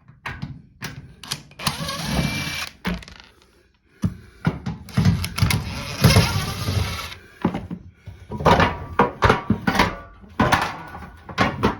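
A power screwdriver running in two spells, one about a second long and one about three seconds long, backing screws out of the washing machine's cabinet. It is followed by a quick run of clicks and knocks as the loosened parts are handled.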